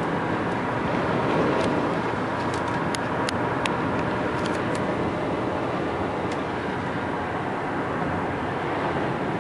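Steady road and wind noise inside a moving car in gusty thunderstorm wind, with about eight light, sharp ticks scattered through the first two-thirds.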